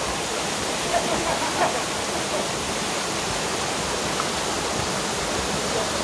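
Steady rush of a small waterfall cascading over rocks into a plunge pool.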